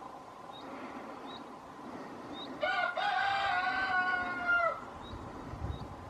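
A rooster crowing once, starting about two and a half seconds in: a short first note, then a long held note of about two seconds that drops at the end. Faint short high chirps repeat roughly once a second underneath.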